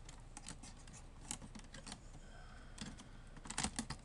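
Faint scattered clicks and light scrapes of small parts being handled inside an open laptop during disassembly, with a quick run of louder clicks about three and a half seconds in.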